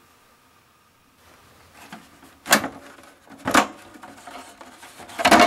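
Plastic top cover of a Zenith Z-148 PC case being slid off and lifted away: a soft rubbing, then three sharp hollow plastic knocks, the last near the end the loudest.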